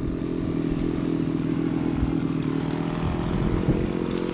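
Small two-stroke petrol chainsaw (a Kawashima) idling steadily, set down and not cutting.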